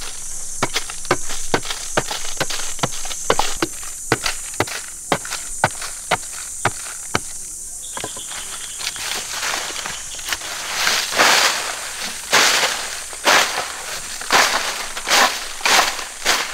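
A hoe chopping into hard, dry ant-hill soil in quick repeated strikes, about two a second. About halfway through it turns to rougher scraping and swishing of loose soil being dragged and scooped out, about once a second and loudest near the end. A steady high hiss runs underneath.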